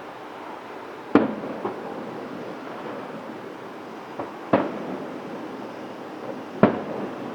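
Fireworks shells bursting in the air: three loud booms, about a second in, halfway through and near the end, with a couple of fainter pops between them. Each boom trails a short echo over a steady wash of wind noise.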